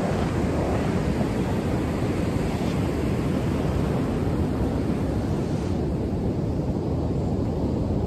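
Steady wind rumbling on the microphone over the rush of breaking ocean surf.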